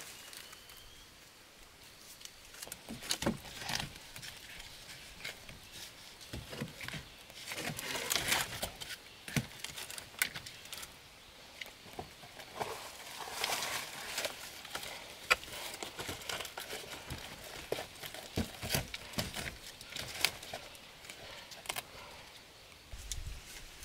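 Hands working with dry leaves, sticks and soil: irregular rustling and crinkling with scattered sharp clicks and knocks.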